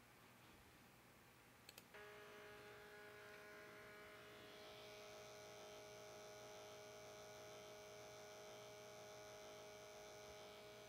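Two quick clicks, then a small square hybrid stepper motor is energised and gives a steady hum of several fixed tones, its higher tones filling in over the next couple of seconds.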